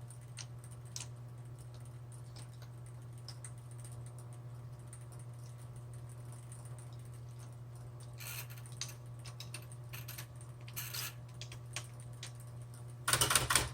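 Light clicks and small knocks of a ribbon spool being handled and seated on a Smith Corona Electra 120 electric typewriter, over a steady low hum. A louder run of clicks comes near the end.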